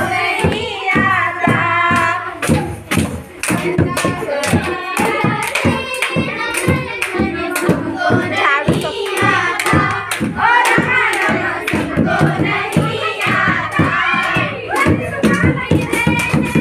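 A group of girls singing a folk song together, with hand clapping and a two-headed barrel drum beaten in a steady rhythm.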